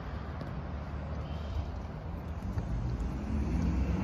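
Low rumble of road traffic, with a vehicle engine growing louder near the end.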